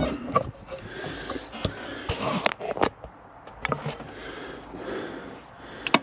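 Scattered clicks and light handling knocks as fingers press the buttons of a cab-mounted CB radio, over a faint steady hiss.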